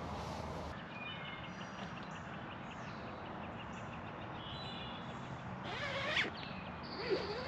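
Birds singing in the early-morning chorus: many short high chirps and trills, with two louder sliding calls near the end.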